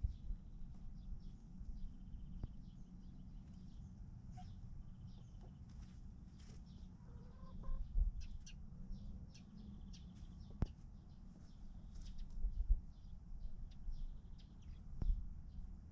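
Chickens clucking softly, with faint short high calls throughout. Underneath runs a low rumble with a few louder thumps, and there are several sharp clicks.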